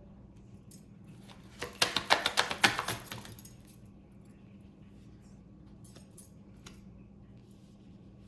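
A quick, rattling run of clicks that lasts about a second and a half, starting nearly two seconds in, as a tarot deck is shuffled and handled. Two faint single clicks follow later.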